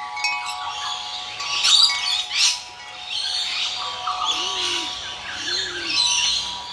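Birds chirping and calling in a busy, overlapping chatter over background music with steady held notes.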